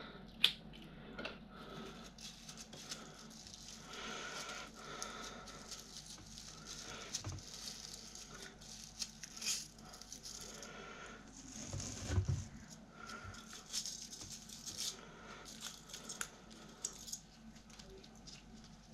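Loose aluminium motor-winding wire being handled and snipped with wire cutters: faint scattered clicks, rattling and rustling, with a couple of soft thumps about twelve seconds in.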